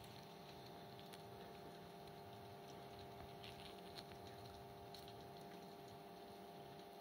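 Near silence: a faint steady hum with a few soft ticks.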